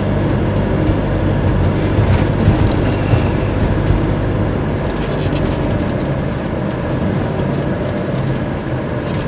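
Fiat Ducato-based motorhome driving along a town street, its diesel engine and road noise heard from inside the cab as a steady low drone.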